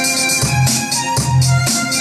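Dance music with a steady beat, a repeating bass line and held chords.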